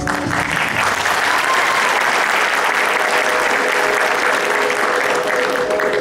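Audience applauding steadily, starting as the dance music stops. Music begins again faintly near the end.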